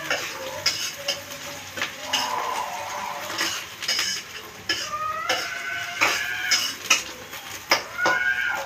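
Metal spatula scraping and clanking against a wok as stir-fry ingredients are tossed, with a few short high squeals about five and eight seconds in.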